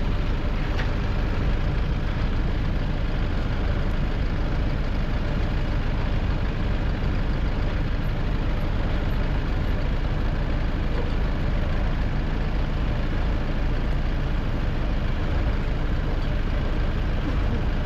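Heavy vehicle engine running steadily: a constant low rumble that neither rises nor falls.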